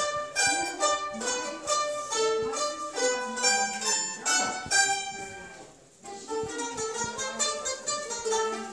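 A small ensemble of children playing mandolins together, a tune of rapidly plucked notes at several pitches. About five seconds in the playing stops and the notes ring away, and after a short break the group starts playing again.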